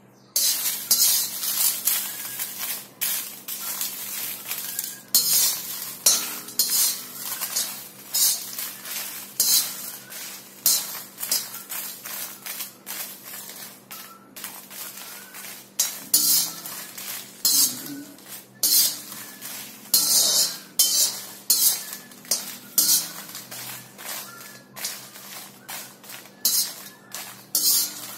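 Stainless steel slotted spoon scraping and clinking against an iron kadhai as whole dried red chillies are stirred and turned while dry-roasting in a little oil. It comes as repeated irregular scrapes and knocks, about one or two a second.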